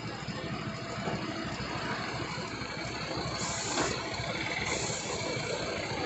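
BharatBenz tipper truck's diesel engine running at low speed as the truck turns, a steady rumble. Short hisses come about three and a half seconds in and again near five seconds.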